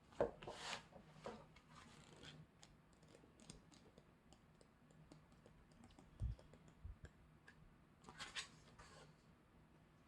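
K-pop album packaging being handled: scattered light clicks and short paper-and-plastic rustles, louder near the start and again near the end, with a soft low thump a little past the middle.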